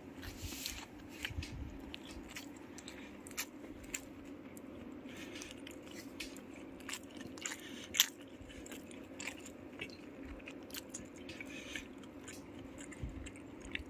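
Close-up chewing and biting of pork sisig and rice, with scattered soft crunches and mouth clicks and a sharper click about eight seconds in. A steady low hum runs underneath.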